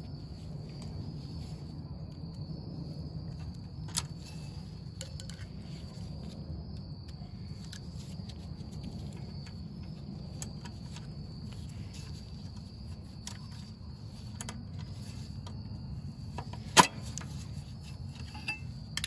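Scattered small clicks and clinks of hand tools and metal parts being fitted on a Briggs & Stratton leaf blower engine, with a sharp click about four seconds in and a much louder one near the end. Behind it, insects chirr steadily over a low, even hum.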